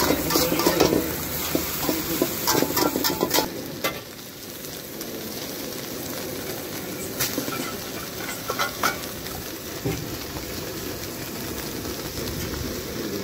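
Shredded cabbage and carrots sizzling in a hot wok, stirred and tossed with a metal spatula that scrapes and clicks against the pan. The stirring is busiest for the first three and a half seconds. After that the frying sizzle carries on more quietly, with a few scattered clicks.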